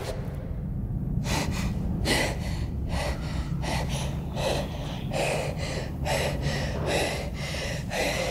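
A woman panting heavily, with quick, ragged gasping breaths about twice a second that begin about a second in, over a low steady hum.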